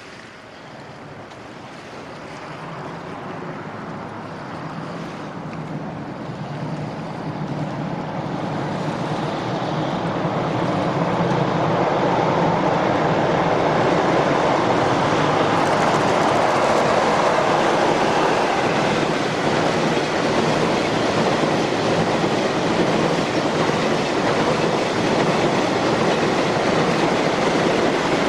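Freight train crossing a steel railway bridge: the rumble grows louder over the first ten seconds or so as it approaches, then holds loud and steady as the train passes.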